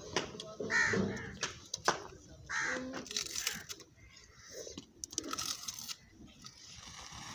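Matchstick heads flaring one after another as the flame spreads round a ring of matches, with several sharp cracks in the first two seconds and a crackling hiss later. Two short cries stand out, about a second and two and a half seconds in.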